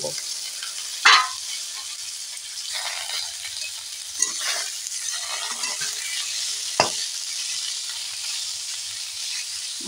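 Cut green vegetable pieces sizzling as they fry in oil in a metal kadai, stirred with a metal spatula that scrapes against the pan. A sharp metal knock comes about a second in and another near seven seconds.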